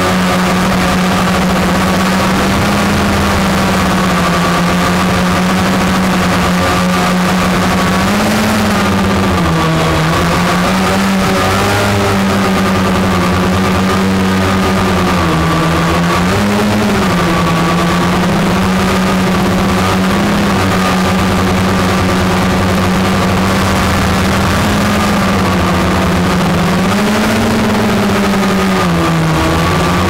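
Multirotor drone's motors and propellers giving a loud, steady buzzing hum close to the camera. The pitch wavers up and down briefly several times.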